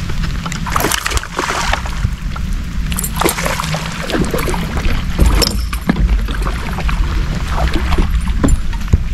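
Wind rumbling on the microphone aboard a fishing boat, with irregular short splashes of water.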